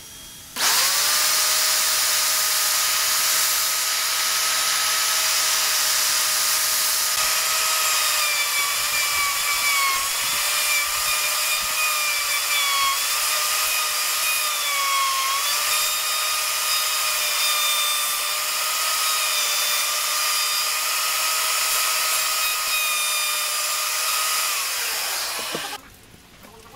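Handheld trim router switched on, quickly reaching a steady whine, then cutting into the wooden door frame, its pitch dipping again and again as the bit takes load. Near the end it is switched off and winds down with a falling pitch.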